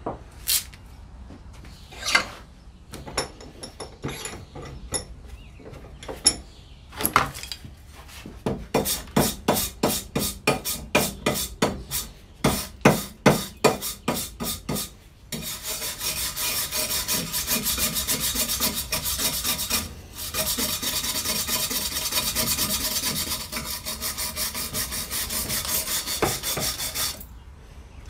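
Metal file rasping across the edge of a steel blade as it is sharpened by hand. A few scattered knocks come first, then separate strokes about two a second, then a long unbroken stretch of rapid rasping from about halfway in until near the end.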